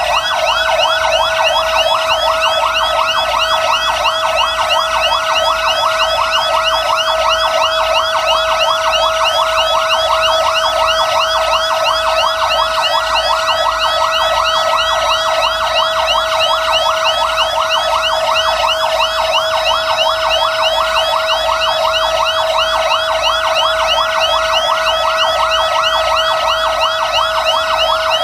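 Fire trucks' sirens sounding together without a break: a steady tone under fast, repeating rising sweeps that overlap one another.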